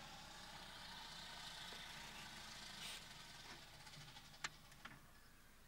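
Faint, steady hum of a distant vehicle engine, with a sharp click about four and a half seconds in.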